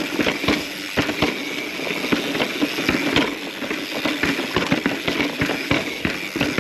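Mountain bike rattling and clattering as it rolls over rough sandstone slickrock: many irregular sharp knocks and clacks over a steady rush of noise.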